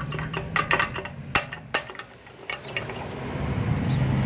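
Campbell pedestrian crosswalk push button clicking repeatedly while it waits to activate, a few sharp ticks a second. From about three seconds in, a vehicle's engine hum rises underneath.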